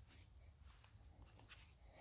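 Near silence, with faint soft rubbing as floured hands shape and press bread dough on a wooden board.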